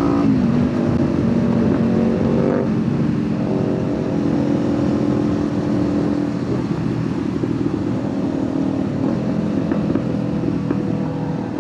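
Kawasaki Ninja 500's parallel-twin engine and exhaust heard from the rider's seat, changing pitch through gear changes. For a few seconds in the middle the exhaust note turns rough, crackling and popping as the throttle comes off.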